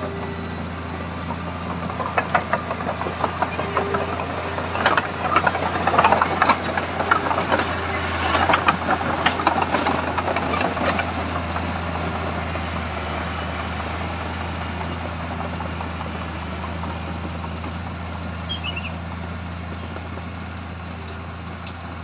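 Komatsu crawler bulldozer's diesel engine running steadily while its steel tracks clank and rattle over dirt and paving. The clanking is loudest through the first half as the dozer works close by, then thins out as it moves away.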